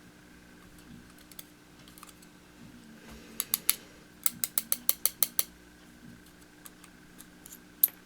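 Small sharp metal clicks from tweezers picking driver pins out of a padlock: three quick clicks about three and a half seconds in, then a fast run of about nine, and a single louder click near the end.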